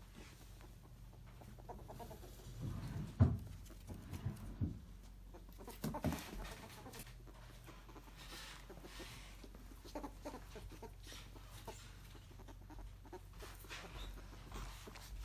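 A ferret dooking: soft, clucking chuckles in short scattered bursts, the sound a ferret makes when excited and playful. A sharper knock comes about three seconds in.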